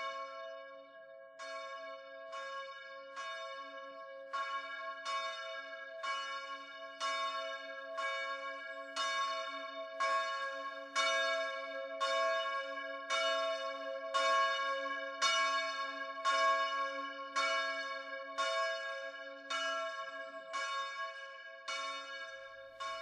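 A single bell struck over and over at a steady pace, about once a second, always on the same note, each stroke ringing on into the next over a sustained low hum.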